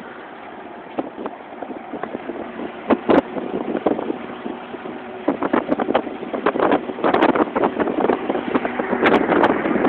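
A car driving on a highway, heard from inside: a steady road and engine noise. Over it, irregular gusts of wind buffet and crackle on the microphone, growing more frequent and louder from about a second in.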